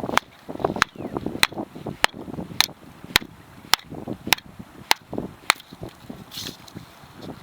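Hultafors Scout hatchet chopping firewood into kindling: about ten sharp, evenly paced strikes a little over half a second apart, which stop about five and a half seconds in.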